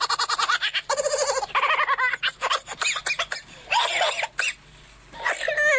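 A woman laughing in short, high-pitched bursts, mixed with some talk.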